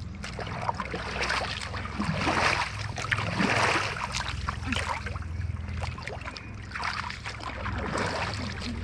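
Makeshift paddle churning and splashing water in several uneven strokes, with a steady low rumble underneath.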